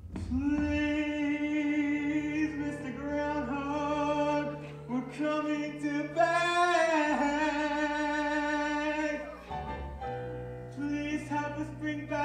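A solo voice singing long, held notes over backing music in a stage musical number, with a short break about nine and a half seconds in.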